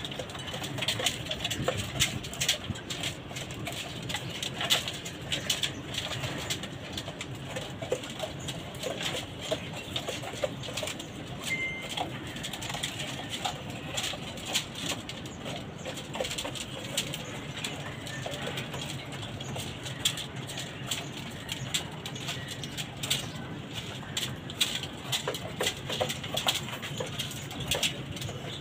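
Domestic pigeons cooing continuously in their cages, with many small clicks and scuffs throughout.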